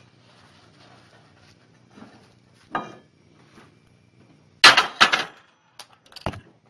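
Sharp knocks and clatter, a short one near the middle and a loud cluster of several about two-thirds of the way in, then a few lighter clicks, over a faint steady hum.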